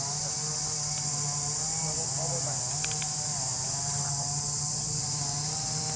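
A steady, high-pitched insect chorus, with a low steady hum and faint wavering tones underneath, and a few short clicks about three seconds in.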